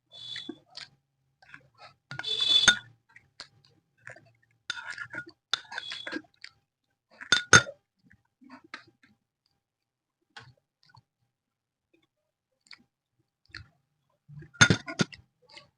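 Close-up eating sounds: intermittent chewing and mouth sounds of someone eating paratha, broken by a few sharp clicks, the loudest about halfway through and near the end, with quiet stretches between.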